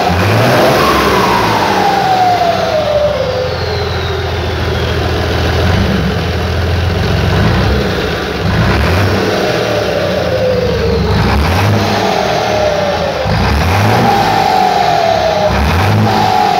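Mercedes-Benz OM 366 LA six-cylinder turbo-diesel running, revved by hand at the injection pump's throttle lever about five times, each time its speed falling back toward idle.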